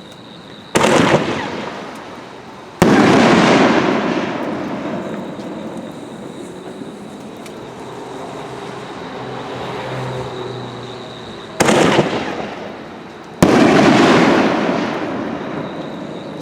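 Two reloadable artillery firework shells going off. Each is launched from its mortar tube with a sharp thump, then bursts about two seconds later with a louder bang that rumbles away over several seconds. The second shell fires about ten seconds after the first.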